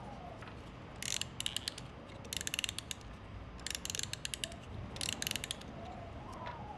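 A small hand-held ratcheting mechanism clicking in four short bursts of rapid clicks, about a second and a half apart. A faint wavering whine can be heard near the start and the end.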